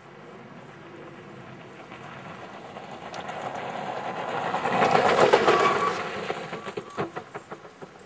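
Downhill mountain bike passing close on a gravel trail: tyres crunching over loose gravel, swelling to a peak about five seconds in and then fading as it rides away, with a few sharp clacks around seven seconds.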